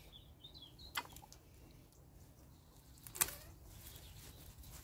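Two sharp snips of hand pruning secateurs cutting Russian vine stems, about two seconds apart, the second louder. Faint bird chirps near the start.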